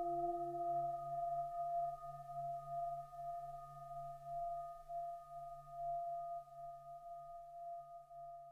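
Shakuhachi and Haken ContinuuMini synthesizer playing a slow duet: pure, bell-like tones are held steady over a low pulsing drone. A lower note fades out in the first second or two, and the whole sound slowly dies away.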